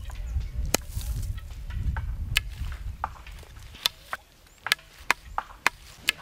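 A series of sharp, irregularly spaced knocks, about nine in all, coming closer together in the second half, over a low rumble that dies away about halfway through.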